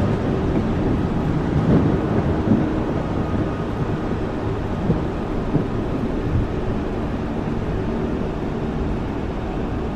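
Rain falling steadily, with a low rumble underneath and small swells in level.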